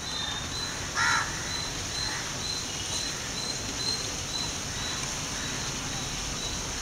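A single short, loud bird call, like a crow's caw, about a second in, over a steady high hiss with a faint regular high-pitched pulse.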